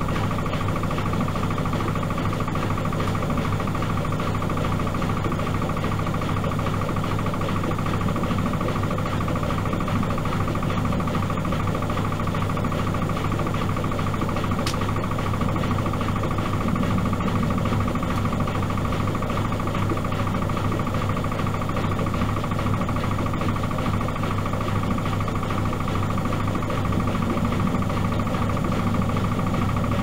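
Miele Supertronic W5000 front-loading washing machine with its drum spinning at a steady speed: a constant motor hum with a steady high whine, running without pauses or reversals.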